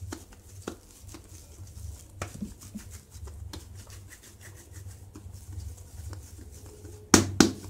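Oiled hands handling and turning a soft ball of proofed pizza dough over a glass bowl: faint rubbing and squishing with small scattered taps. About seven seconds in come two loud knocks close together.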